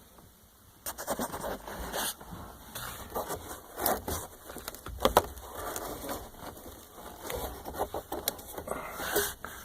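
Irregular clicks, knocks and scrapes of hands handling parts and cable, with no steady motor sound, starting about a second in and stopping shortly before the end.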